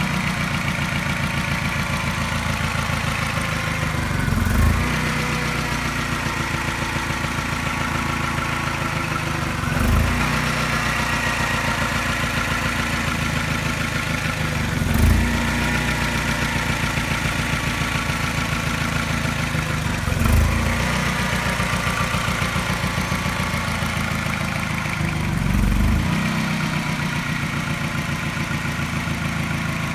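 Mini N12 four-cylinder petrol engine idling, with a brief swell in the sound about every five seconds. The owner hears a regular tap that seems to coincide with a regular mild miss, making the idle seem to pulse.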